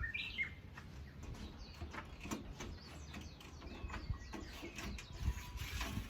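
A bird chirps briefly near the start, over scattered light clicks and knocks from things being handled during cleanup.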